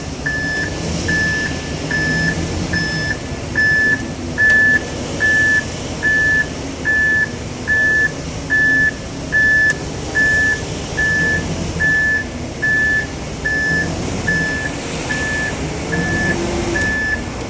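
A truck's reversing alarm beeps steadily, a single tone a little more than once a second, over the low rumble of its engine as it backs up.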